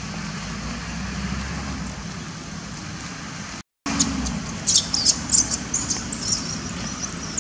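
Steady outdoor background hiss that cuts out for a moment partway through. Then a baby long-tailed macaque gives a run of high-pitched distress squeals while a young monkey drags it by the leg.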